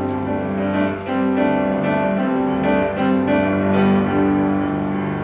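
Jazz played on double bass and piano: sustained low bass notes under a moving line of higher notes that change about every half second.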